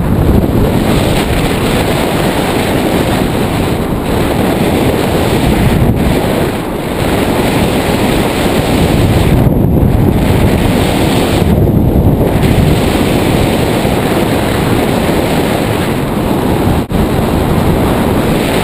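Loud airflow buffeting the jumper's body-worn camera microphone under an open BASE-jump parachute canopy. It is a steady wind rush with a few brief lulls.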